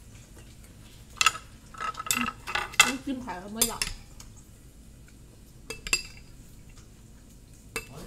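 Chopsticks and a plate clinking and clattering in a quick flurry of clicks from about one to four seconds in, then a few single clicks later on.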